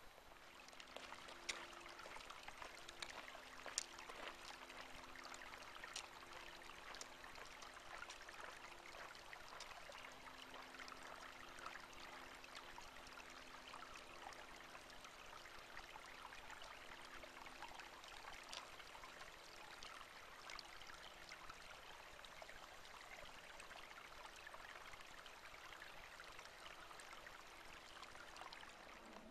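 Near silence: a faint steady hiss with scattered small clicks and a faint low hum that comes and goes.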